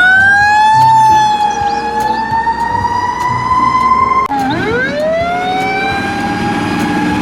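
Fire engine siren wailing in a slow, drifting tone. About four seconds in it cuts out and winds up again in a long rising glide, then holds steady.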